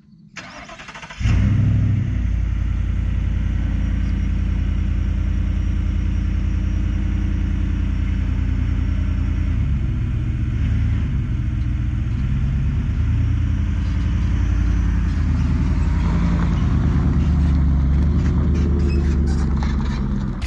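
Ford F-150 pickup's engine running while it tows a trailer loaded with ATVs slowly forward. The engine sound comes in abruptly about a second in and then holds as a steady low drone, swelling a little near the end as the truck passes close.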